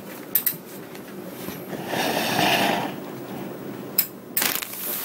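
Plastic mailer bag rustling and crinkling as it is handled, loudest for about a second in the middle, with a sharp knock about four seconds in.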